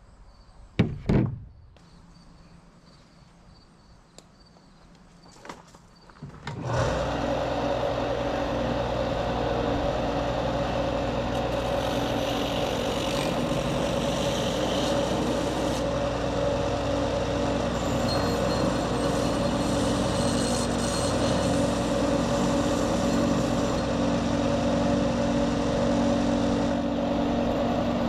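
A couple of sharp knocks about a second in, then a benchtop belt sander's motor starts about seven seconds in and runs steadily, its sanding hiss growing rougher at times as work is pressed against the belt.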